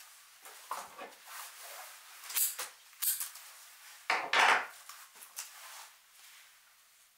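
Objects being handled: a string of irregular short knocks and clinks mixed with rustling scrapes, the loudest a longer scrape about four seconds in.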